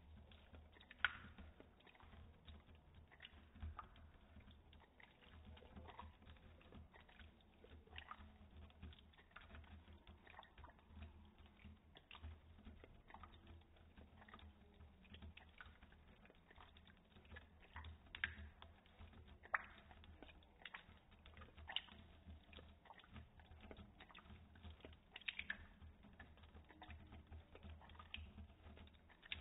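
Faint, irregular soft clicks and smacks of a cat's tongue lapping water from a thin stream of running tap water, slowed down and lowered in pitch by slow-motion playback. A few sharper clicks stand out now and then.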